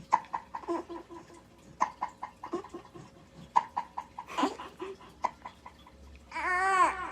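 One-month-old baby vocalising: a string of short, abrupt little voiced sounds, then a longer coo that rises and falls near the end.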